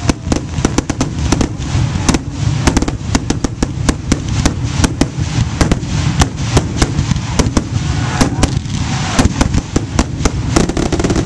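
Fireworks finale barrage: shells bursting in rapid, overlapping succession, many sharp bangs a second over a continuous low rumble.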